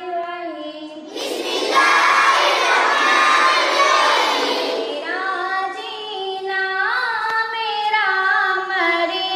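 Children singing a hamad: one child's voice holds a sung note, then about a second in many children's voices join loudly for a few seconds. Near the middle the group drops away and a single child's voice sings on alone, with wavering pitch.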